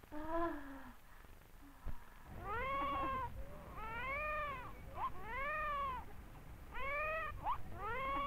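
Newborn baby crying: five wails of about a second each, rising then falling in pitch, with short catches of breath between them.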